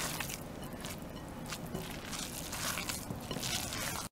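Hands squeezing and mixing damp tapioca pearls in a glass bowl: a repeated crunchy, grainy rustle with each squeeze. The pearls are being worked until they stick together into a dough.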